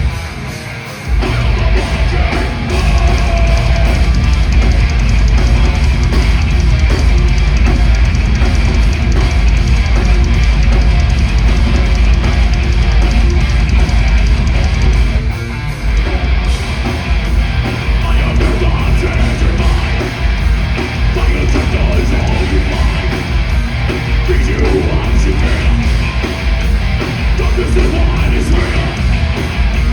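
Heavy metal band playing loudly live: distorted electric guitars, bass and drums with fast, driving drumming. The band drops out for a moment about a second in and again briefly about fifteen seconds in, then comes straight back.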